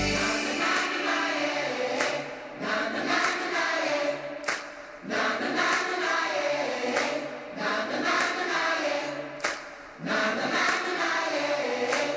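Music soundtrack of voices singing like a choir, in phrases with short breaks every few seconds and no bass beat.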